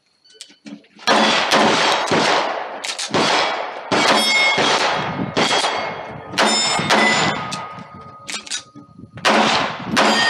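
A fast, uneven string of pistol shots at steel plate targets, starting about a second in. Several shots are followed by the ring of a struck steel plate.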